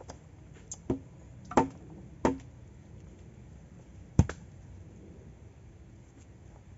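Four sharp knocks of wooden and bamboo poles being handled, three in quick succession and then the loudest about four seconds in.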